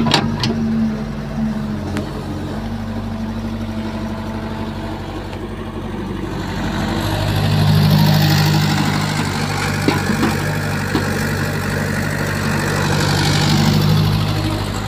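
Caterpillar E70B excavator's diesel engine running steadily, swelling louder and hissier twice, once about halfway through and again near the end. A few sharp knocks at the very start as the bucket works the soil.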